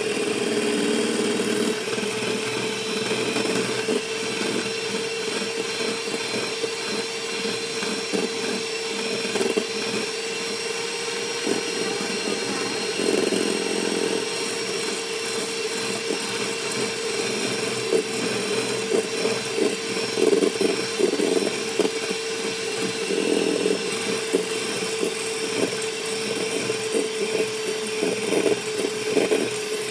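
Kenwood electric hand mixer running steadily, its beaters whipping egg whites in a stainless steel bowl, with a constant motor hum.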